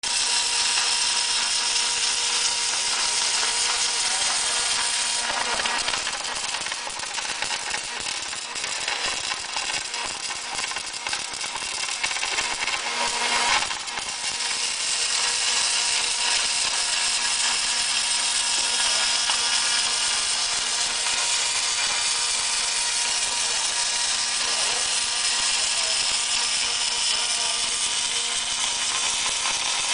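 Automated TIG welding machine running: a steady high hiss over a constant hum, with mechanical clicks and rattles between about five and fourteen seconds in and a brief louder burst just before fourteen seconds.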